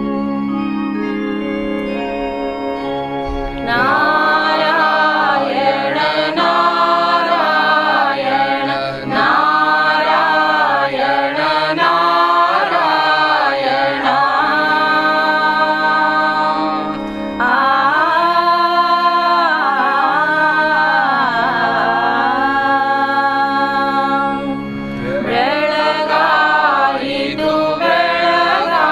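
A kakad aarti devotional hymn: a harmonium holds sustained chords alone for the first few seconds, then a voice comes in singing over it in long melodic phrases, with brief breaks between lines.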